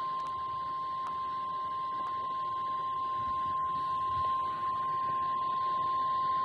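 NOAA Weather Radio warning alarm tone (1050 Hz) coming through a Midland ER210 weather radio's speaker: one steady, unbroken high tone. It signals that a new warning is about to be broadcast.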